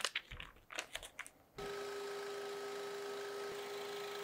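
A few light clicks and rustles of hands handling small items. About one and a half seconds in, a scroll saw starts running steadily with an even hum, cutting a maple board.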